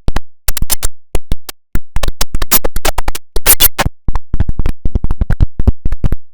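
Digitally chopped sound effect: a rapid, irregular run of short, sharp clicks and blips, several a second, broken by brief silent gaps, like a stutter or scratch edit.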